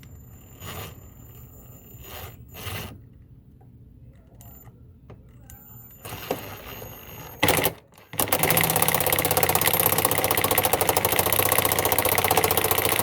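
A few light handling clicks and knocks, then a brief burst and, about eight seconds in, a Ryobi P235 18-volt impact driver running steadily for about five seconds with rapid hammering, driving a socket on an adapter.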